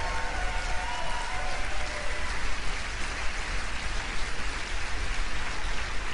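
Large audience applauding steadily, a dense wash of many hands clapping.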